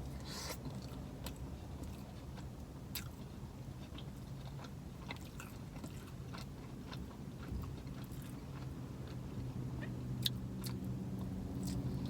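A person chewing a boneless chicken wing close to the microphone, with scattered soft wet mouth clicks. A steady low hum runs underneath.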